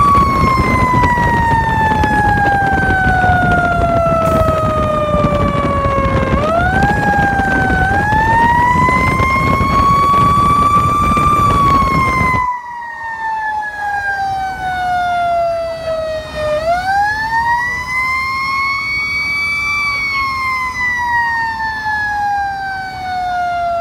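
Fire engine siren wailing in long glides, falling slowly from high to low and winding back up several times. Heavy rumbling engine and road noise under it drops away abruptly about halfway through.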